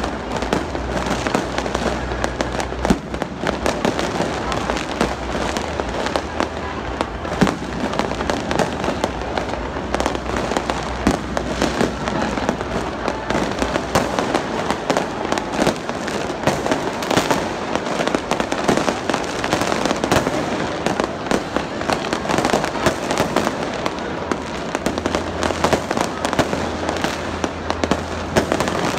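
Aerial fireworks going off without a break, many bangs and crackles overlapping, with the voices of a large crowd underneath.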